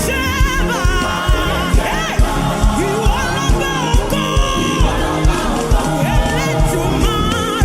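Live gospel worship music: singers with wavering, sustained vocal lines over a band with a steady drum beat of about two thumps a second.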